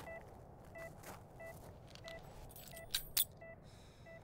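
A bunch of keys jangles briefly about three seconds in, with a few sharp metallic clinks. Under it, a faint electronic beep repeats steadily about one and a half times a second.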